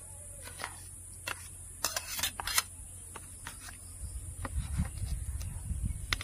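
Steel spoon clinking and scraping against a stainless steel bowl while ladling fish curry, a scatter of sharp clicks with the loudest cluster about two seconds in, over a faint steady hiss.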